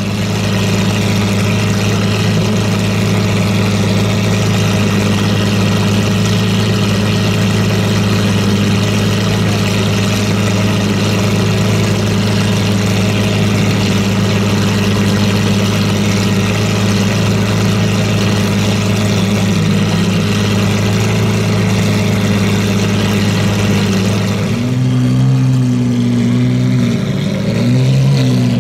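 Lamborghini Aventador's V12 idling steadily at the exhaust. About 25 seconds in, the revs rise twice, briefly, as the car pulls away.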